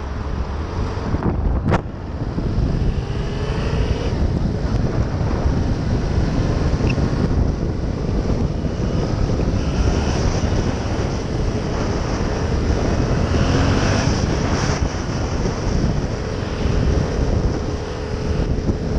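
Motorcycle being ridden, with heavy wind buffeting the microphone over the engine and road noise. It is a Yamaha MT-07, whose 689 cc parallel-twin engine is heard under the wind. A short sharp crack sounds about two seconds in.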